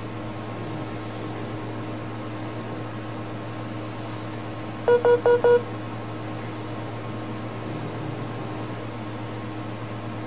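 Four short, identical electronic beeps in quick succession, about halfway through, over a steady low hum.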